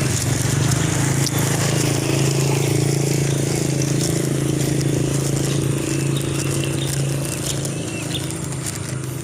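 A car engine running steadily, then fading away over the last couple of seconds.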